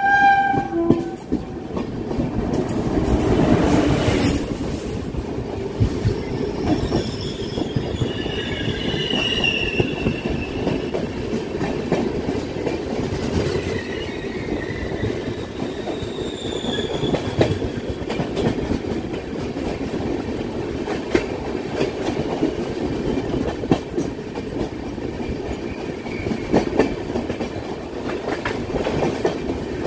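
Indian Railways passenger train running past close by on the next track: a steady rumble and clatter of wheels on rails. A high squeal of wheels on rail comes and goes from about 7 to 17 seconds in.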